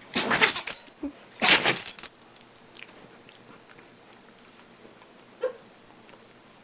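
Bichon poo dog sneezing forcefully twice in the first two seconds through a stuffy nose, then a short faint snuffle about five seconds in.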